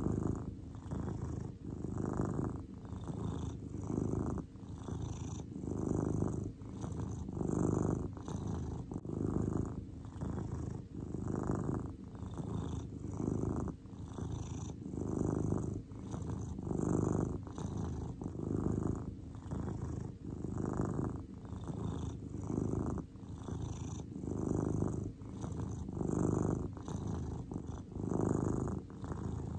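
Domestic cat purring steadily, the purr swelling and easing in an even rhythm with each breath in and out.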